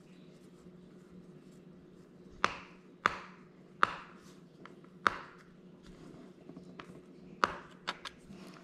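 Several sharp, isolated clicks and taps, about five clear ones spread a second or so apart with fainter ones between, from a small screwdriver being handled and worked at a laptop's bottom-cover screws. A faint steady hum lies underneath.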